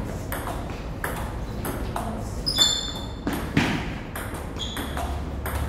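Table tennis rally: the celluloid ball clicking back and forth off the bats and the table at an uneven pace, in a hall with some echo. A couple of short high-pitched squeaks near the middle.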